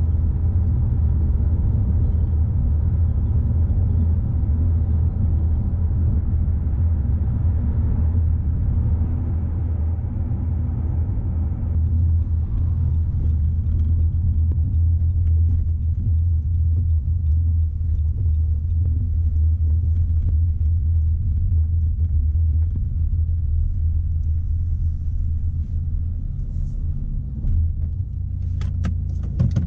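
Steady low rumble that eases a little about twelve seconds in, with a few faint clicks near the end.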